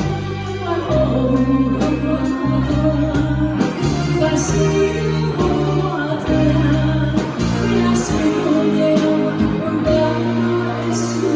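A pop song with singing, backed by a steady beat, a held bass line and guitar.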